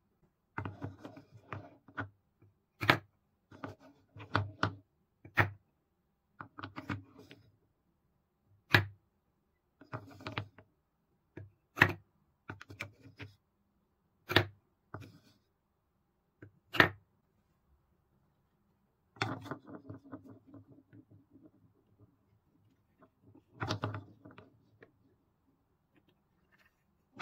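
Painted wooden balls rolling with a low rumble around a wooden bowl, and sharp single wooden knocks as they are scooped out with a wooden scoop and set into wooden cups, some knocks a second or two apart, with short pauses between.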